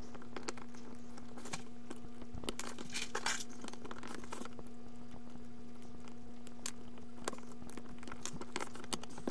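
Light clicks, taps and rustles of a K-Line model switcher's shell pieces and wiring being handled and pressed into place by hand, over a steady faint hum.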